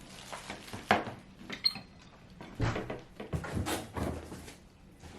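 Vacuum cleaner parts and their packaging being handled and set down during unboxing: a string of light knocks and clacks with rustling in between.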